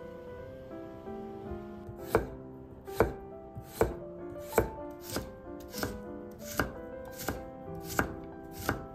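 Chef's knife cutting a carrot on a wooden cutting board: about ten even cuts, one every three-quarters of a second or so, starting about two seconds in, over soft background music.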